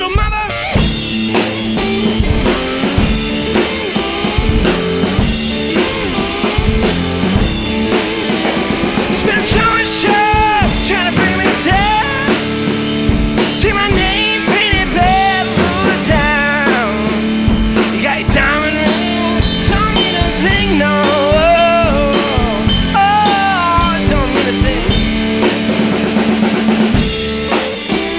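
Blues-rock band playing an instrumental break: a full drum kit keeps a steady beat while a lead line of bent, sliding notes runs through the middle, most likely electric guitar.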